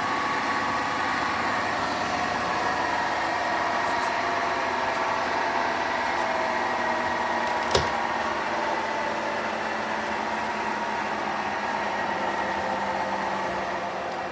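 Hotpoint washing machine running with a steady grinding noise and a whine of several held tones that drift slightly in pitch. One sharp click about halfway through.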